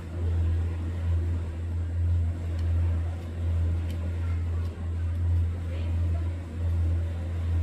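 Steady low mechanical hum of a running motor or engine, swelling and easing about once a second.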